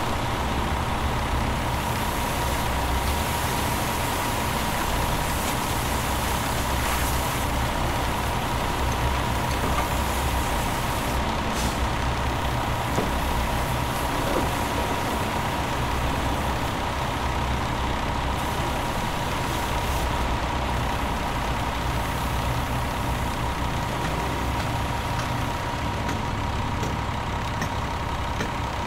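Cleaning truck's engine running steadily while its hose sprays water: a low engine rumble under a steady hiss, with a thin steady tone running through it.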